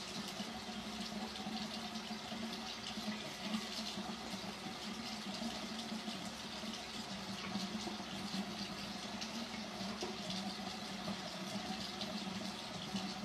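Bathroom faucet running steadily into a sink.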